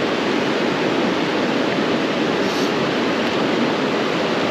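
Steady rush of flowing stream water, an even hiss that holds at one level with no breaks.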